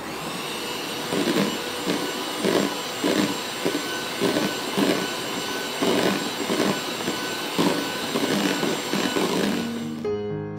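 Electric hand mixer running steadily at speed, its beaters whipping cream and condensed milk in a plastic bowl, with a pulsing swish about twice a second as the beaters are swept around the bowl. The mixer stops about ten seconds in and soft piano music begins.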